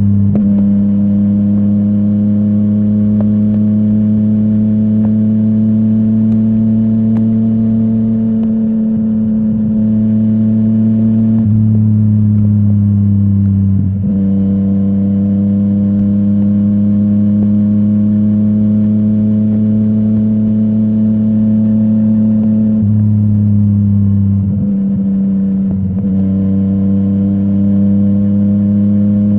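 Yamaha MT-09's three-cylinder engine running through a full Akrapovic exhaust at steady, moderate revs under way, the note drifting slowly and changing abruptly a few times.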